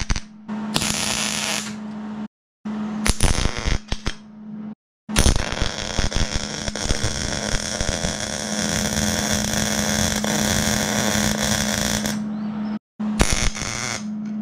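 Wire-feed welder's arc on steel, running in several short bursts and then one long bead of about seven seconds, over a steady hum. The sound cuts off abruptly between runs.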